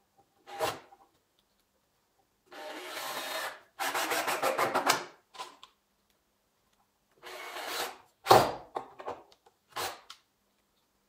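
Cordless drill driving screws into the pine boards of a wooden planter box, the motor running in bursts of about a second as each screw bites into the wood. Short knocks and clicks fall between the runs, the sharpest a little after 8 seconds in.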